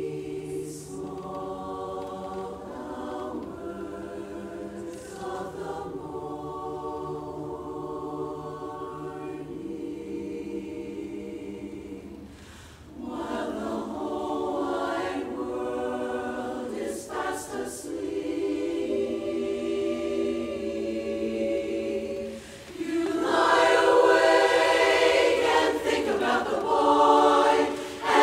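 Women's barbershop chorus singing a cappella in close harmony. The phrases break briefly about halfway, and the singing swells louder for the final stretch.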